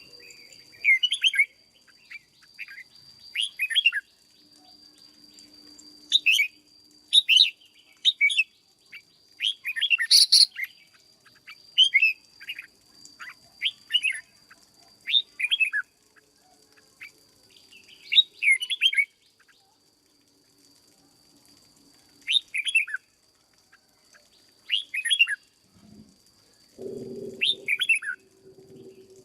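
Red-whiskered bulbul singing: short, quick whistled phrases repeated every second or two, with a few brief pauses.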